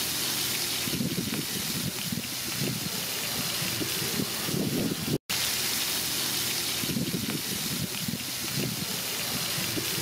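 Prawns sizzling in hot oil on a large flat pan: a steady hiss with irregular crackle. The sound drops out for an instant about five seconds in.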